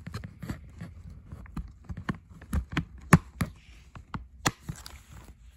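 A worn plastic clamshell video case being handled, giving an irregular string of sharp clicks and taps. The loudest clicks come about three seconds in and again about four and a half seconds in.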